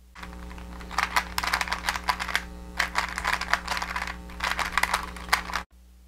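A 3x3 Rubik's cube being speed-turned: a fast, dense run of plastic clicks and clacks from its layers turning for about five and a half seconds. The run cuts off suddenly near the end, when the cube is solved.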